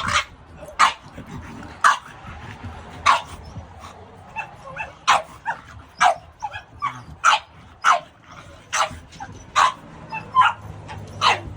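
A dog barking over and over, about a dozen short, sharp barks at roughly one a second.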